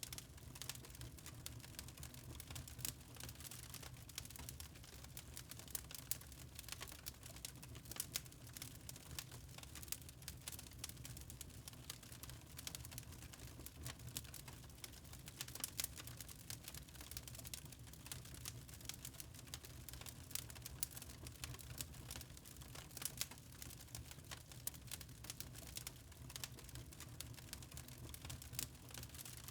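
Fire in a fireplace crackling: many small irregular pops and snaps over a low steady rumble.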